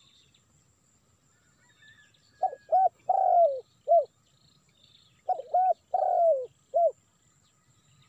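A dove cooing: two phrases of four low coos, the third coo in each longer and falling in pitch.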